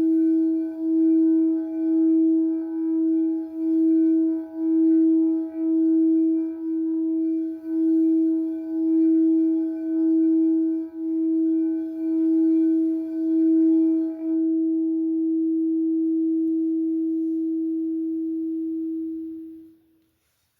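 A singing bowl sounding one steady, pulsing tone as it is rubbed around the rim. About two-thirds of the way through the pulsing stops and the bowl rings on alone, then dies away quickly near the end.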